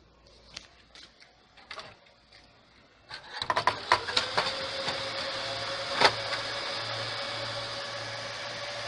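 A few faint clicks, then about three seconds in a Dell PowerEdge R720 server powers on and its cooling fans spin up to a loud, steady whir with a whine that rises slightly as it settles. One sharp click is heard about six seconds in.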